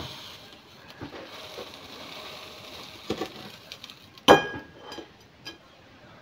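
Kitchen handling sounds as toasted bread is lifted off an electric contact grill onto a ceramic plate: a few soft knocks, then one sharp clink that rings briefly about four seconds in.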